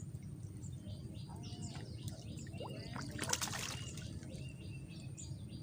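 Water trickling and splashing with birds chirping, and a brief louder rush of noise about three seconds in.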